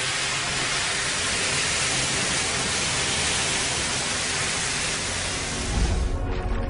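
Steady loud hiss of steam from a nuclear-heated melt probe melting its way down into ice, with a low rumble coming in near the end.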